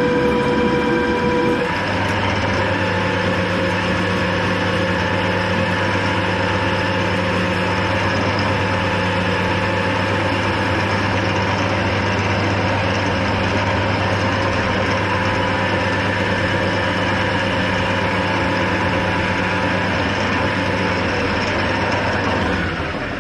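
Hafco AL-320G metal lathe running with its chuck spinning during a turning pass, a steady hum with a whine above it. The tone changes about two seconds in, and the lathe spins down near the end as it is switched off.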